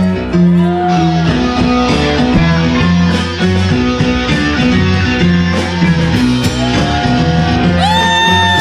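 Rock music with guitar and a steady rhythmic bass line. Near the end a long held note slides into place.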